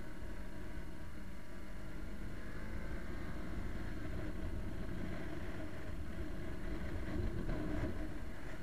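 Motorcycle on the move: steady wind and road rush over the bike-mounted camera, with the engine's drone underneath, its pitch drifting slightly. The rush grows a little louder near the end.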